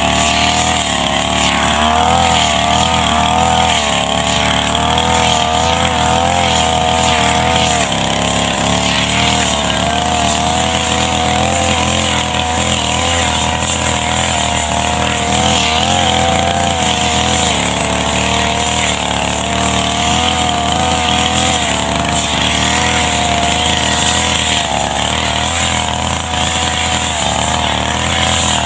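Small two-stroke brush cutter engine running continuously, its pitch wavering up and down.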